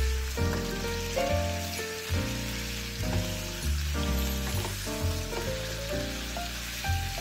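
Instrumental background music, a melody with notes changing every fraction of a second over a steady bass, with the hiss of marinated chicken pieces sizzling in a frying pan beneath it as they are stirred with a spatula.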